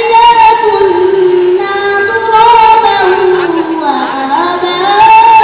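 A girl reciting the Quran in the melodic, sung tartil style. She holds long notes that bend slowly up and down, and her voice dips lower about four seconds in before rising again.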